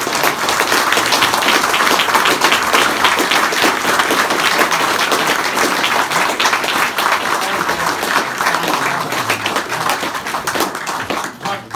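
An audience applauding, a dense run of many hands clapping that dies away near the end.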